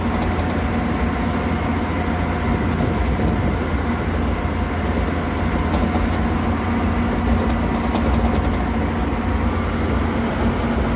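Caterpillar 12H motor grader's diesel engine running steadily under working load, heard from inside the cab as the grader drives along moving material with its blade.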